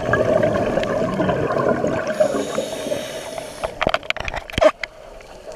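Scuba diver's exhaled bubbles gurgling out of a regulator, heard underwater through a GoPro housing, with a brief high hiss from the regulator about two seconds in. A scatter of sharp clicks follows near the end, and then the bubbling dies down.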